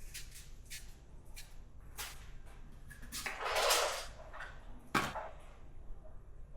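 Kitchen clatter from breakfast being made: scattered light clicks and knocks of utensils and dishes, a longer rustle or scrape about three seconds in, and a sharp knock about five seconds in.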